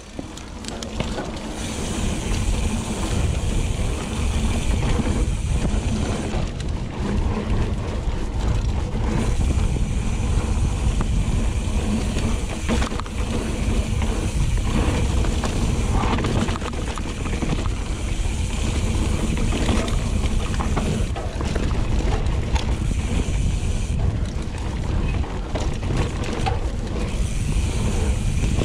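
Steel hardtail mountain bike ridden along a dirt singletrack: wind rumble on the GoPro's microphone over tyre noise and the bike rattling across bumps, with the Hope Pro 4 rear hub's freehub ticking when coasting.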